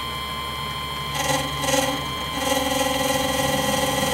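Mini lathe running at slow speed while a chamfer is cut on a brass bushing: a steady motor hum, then a whine that starts about a second in, with two short scraping bursts as the tool bites and then a steady whine.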